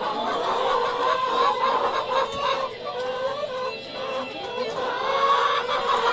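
A flock of chickens hollering and clucking continuously, many birds calling over one another. The birds are agitated at being let off the roost an hour later than usual.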